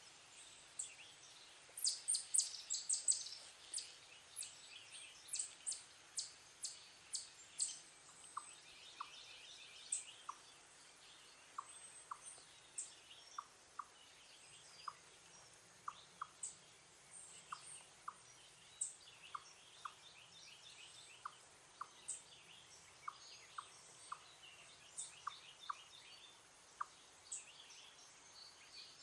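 Eastern chipmunk calling with repeated short, sharp high chips, coming quickly about two seconds in and then more spaced out. From about eight seconds in, a lower short note repeats roughly once a second alongside them.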